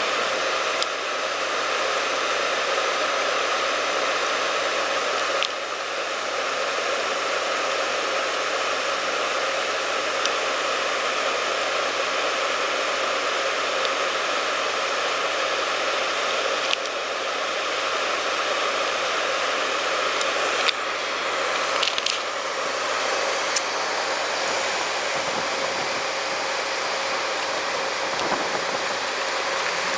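Steady hiss of storm rain and wind, with a faint steady hum underneath and a few sharp ticks.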